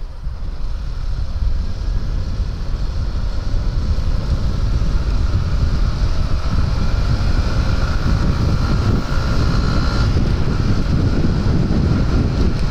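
Wind rushing over the microphone on a moving Yamaha FZ motorcycle, with the engine's note faintly heard beneath it, rising slowly as the bike gathers speed.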